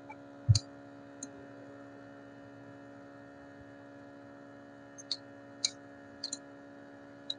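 Steady electrical mains hum, with a soft low thump about half a second in and a few faint, sharp ticks from a thin cutting wire being worked along the edge of a phone screen.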